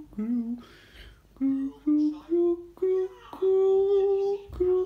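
A person humming a simple tune: a run of short, steady notes that step upward in pitch, then one longer held note about three and a half seconds in.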